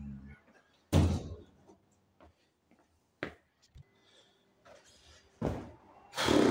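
A window slammed shut with a loud thud about a second in, followed by a sharp click and two more heavy thumps later on.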